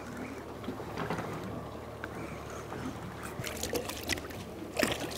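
Water lapping and splashing around a small fishing boat drifting at sea, with a few light clicks and knocks in the last couple of seconds.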